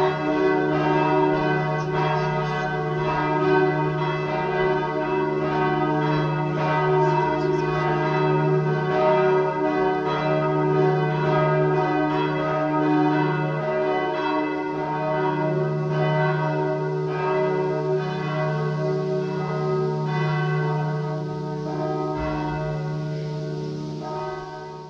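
Several church bells ringing together in a continuous peal, the strokes overlapping with long ringing tones; the sound fades out at the very end.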